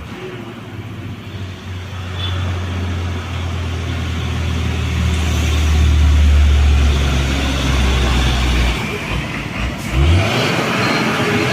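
Heavy diesel truck engine pulling hard up a steep grade, its deep drone growing louder as the truck draws near. The drone drops away about nine seconds in, followed by a short thump.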